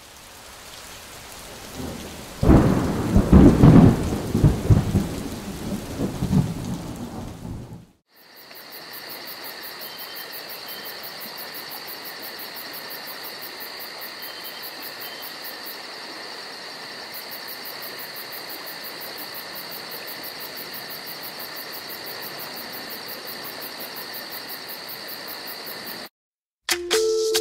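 Thunder rumbling loudly for about five seconds over the steady hiss of rain. This is followed by a long, even hiss with a faint constant high tone, and music starts at the very end.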